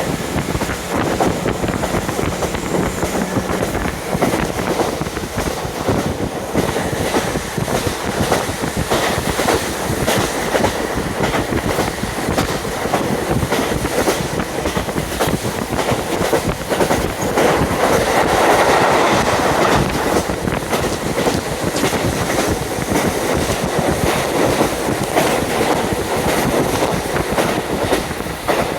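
JR KiHa 40 diesel railcar running at speed, wheels clicking over the rail joints, with rushing wind from an open window. The sound swells louder for a couple of seconds a little past halfway.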